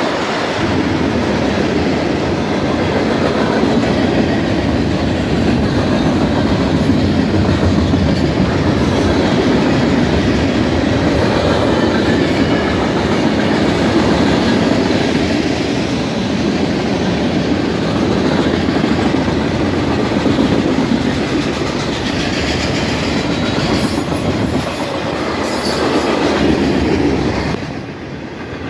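Freight cars of a mixed freight train rolling past close by at speed: a loud, steady rumble of steel wheels on rail with clickety-clack over the joints, dipping briefly near the end.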